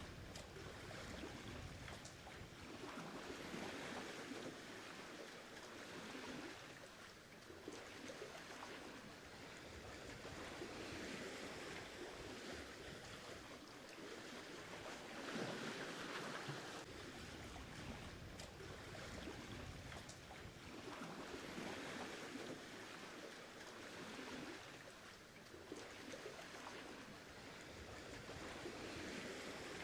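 Sea water rushing and splashing along the hulls of a sailing catamaran underway, swelling and easing irregularly every few seconds.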